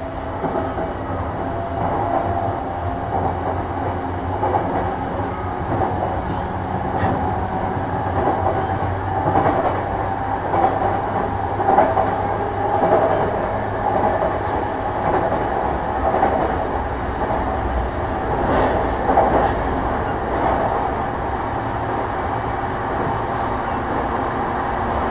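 Running sound inside a JR East E233 series 5000 electric train travelling between stations: a steady rumble of wheels on the rails, a steady tone, and scattered short clicks from the track.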